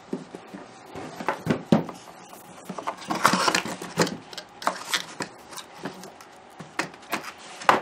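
White cardboard drawer tower and its box being handled on a wooden table: scattered light knocks and taps with scraping and sliding of cardboard, busiest about three to four seconds in as a drawer is worked in and out.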